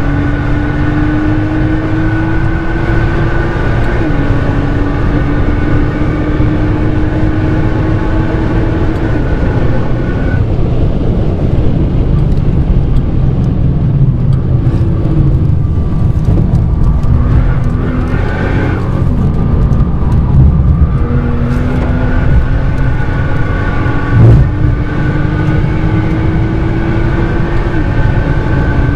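Nissan GT-R R35 twin-turbo V6 with a NISMO titanium exhaust, heard from inside the cabin at track speed. The engine pulls hard with the pitch climbing, upshifts about 4 s in, comes off power and runs lower through the middle with downshifts, then accelerates again and upshifts near the end. A brief sharp thump comes about two-thirds of the way through.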